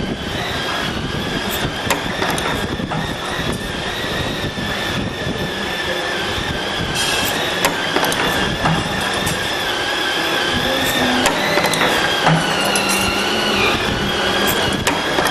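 YSM CNC-26T wire strip forming machine running: a steady motor whine that shifts in pitch now and then, over a mechanical rattle with scattered clicks from the feed and bending mechanisms.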